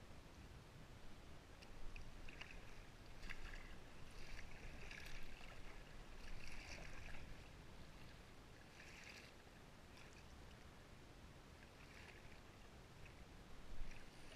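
Water splashing and sloshing around a kayak as it is paddled across open sea, in irregular bursts every second or two, over a low rumble of wind on the microphone.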